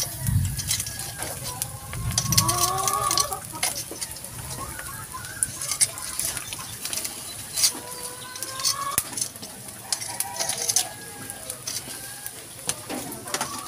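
Chickens clucking and calling in several short bouts, over scattered sharp clicks.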